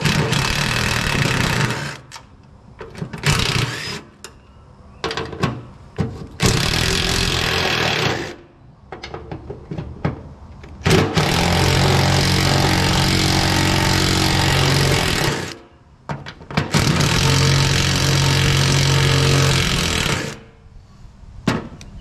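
Impact wrench hammering on the 13 mm bolts of a fuel tank sending unit, run in a series of bursts: short ones at first, then two long runs of several seconds each on a couple of stubborn, penetrant-soaked bolts that fight it and get warm.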